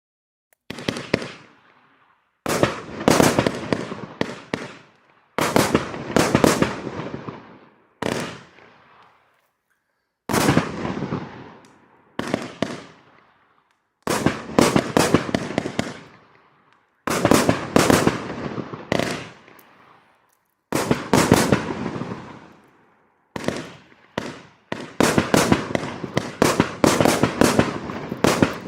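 Riakeo Pyro Addict 1 firework going off in a series of volleys: each volley is a rapid cluster of bangs that fades away, with a short pause before the next, about a dozen volleys in all.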